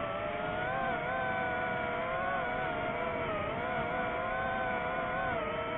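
DJI FPV quadcopter's four electric motors and propellers whining steadily in flight, the pitch wobbling slightly up and down as the throttle changes.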